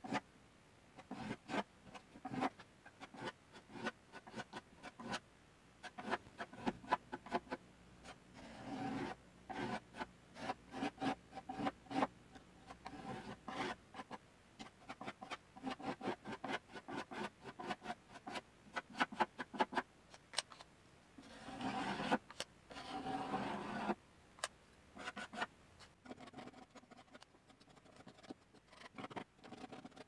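Metal putty knife spreading and scraping wood filler into cracks in painted wood: a run of short, uneven scraping and rubbing strokes, with a few longer smears of the blade.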